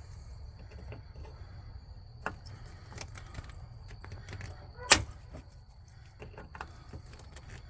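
Scattered metal clicks and clinks of tools working an old spring hose clamp to slide it back, with one sharp clack about five seconds in.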